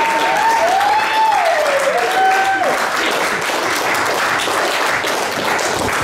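Audience applauding, with a few sliding calls rising and falling over the clapping in the first half.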